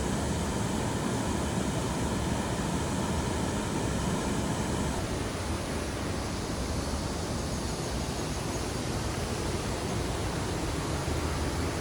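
Steady rushing noise with no distinct events, its character shifting slightly about five seconds in.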